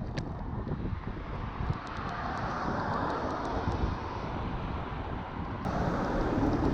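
Wind buffeting the microphone over road and traffic rumble while riding, swelling as a vehicle passes about two to four seconds in. Near the end it cuts abruptly to background music.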